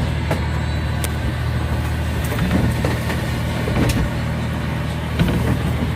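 An engine running steadily with a low, even drone, and a few faint clicks over it.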